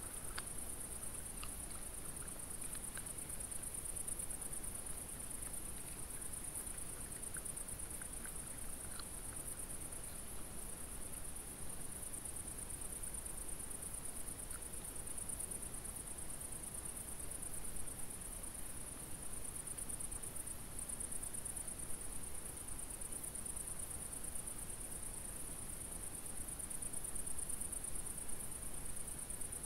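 Steady high-pitched chirring of crickets or bush-crickets at night, with a few faint soft ticks in the first ten seconds.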